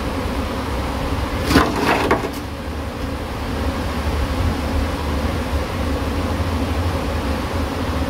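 Steady buzzing hum of a large colony of Cape honeybees disturbed by a hive cut-out, with two sharp clicks about one and a half and two seconds in.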